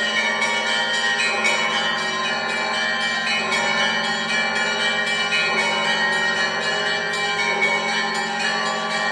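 Orthodox church bells of the Great Bell Tower of the Kyiv Pechersk Lavra ringing in a continuous peal. Many bells of different pitches are struck in quick, overlapping succession over a steady low bell tone.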